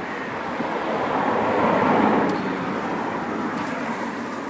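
A passing car: road noise swells to a peak about two seconds in, then fades away.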